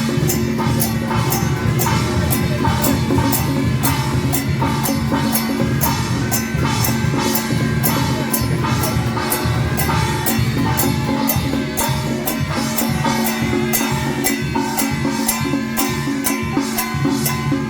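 Loud procession music, drums and percussion keeping a steady beat of about two to three strokes a second over sustained pitched notes.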